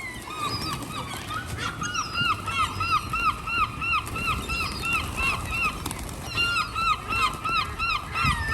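A flock of birds calling over and over, about three calls a second, with several birds overlapping and a short lull about six seconds in.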